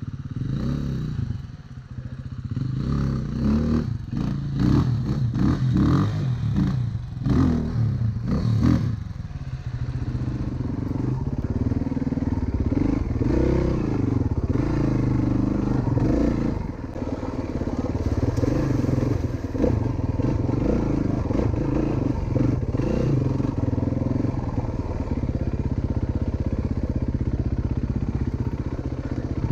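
Single-cylinder four-stroke enduro dirt bike being ridden, its engine note rising and falling with the throttle. Knocks and clatter break in over roughly the first nine seconds, and the running is steadier after that.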